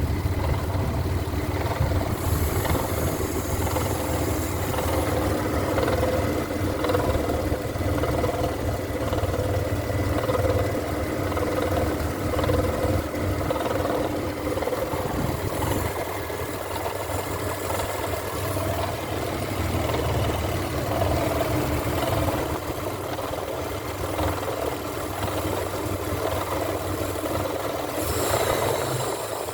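Mitsubishi Pajero Sport's V6 engine running steadily at idle, carrying the strange noise its owner is trying to show.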